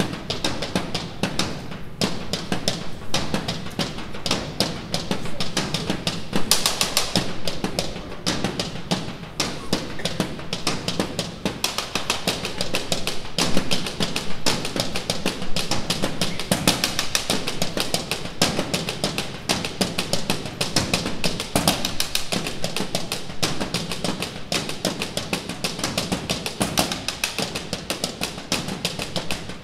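A school band playing a piece, with a drum kit keeping a busy beat of bass drum and snare hits throughout.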